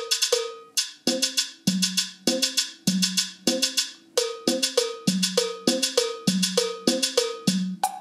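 Built-in percussion phrase loops of a Roland Octapad SPD-30 being previewed one after another. A fast loop cuts off under a second in, and a cumbia loop follows at about a hundred beats a minute, with low drum tones and bright struck strokes. A different loop starts near the end.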